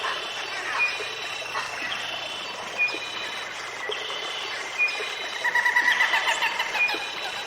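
Jungle ambience: birds calling over a steady background hiss, with a short high call repeating about once a second and a fast run of rapid chattering notes about two-thirds of the way through.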